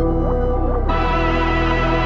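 Background music of sustained, held tones. About a second in, the harmony changes and higher notes come in.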